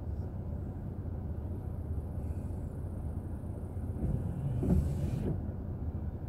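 Car driving on a road, heard from inside the cabin through a dash recorder: a steady low rumble of engine and tyre noise. About four seconds in, a louder swell of noise rises and fades over about a second.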